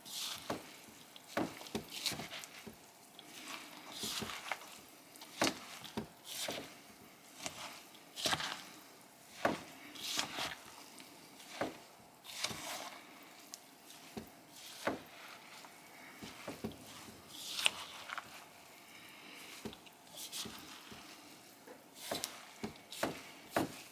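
A spoon stirring a bowl of chopped vegetables mixed with red lentils and quinoa: irregular scrapes and knocks of the spoon against the bowl, about one a second, with soft squishing of the mix.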